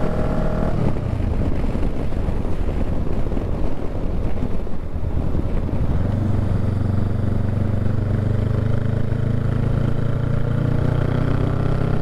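Honda Rebel 500's parallel-twin engine running under way, with wind noise. About six seconds in, the engine note comes up strong and steady, rising gently in pitch near the end as the bike pulls.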